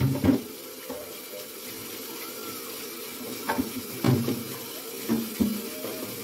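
Kitchen tap running into the sink while a clear plastic refrigerator drawer is rinsed and scrubbed under it, with a few short knocks and clatters of the plastic against the sink.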